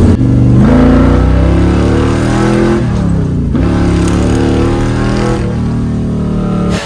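1953 Chevy truck's engine, newly fitted with Holley Sniper throttle-body fuel injection, accelerating under load on a road drive. It revs up, drops in pitch at a gear change about three seconds in, then pulls up again and holds a steady pitch near the end.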